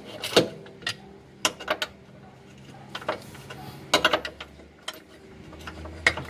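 Scattered sharp metal clicks and clinks of hand tools and bolts being handled while refitting the bolts of a car's lower engine mount, with a quick cluster of clicks about four seconds in.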